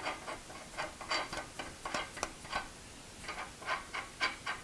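Steel hex nut being spun by hand along freshly lathe-cut threads on a steel axle, test-fitting the threads. It gives an irregular string of light metallic clicks, two or three a second.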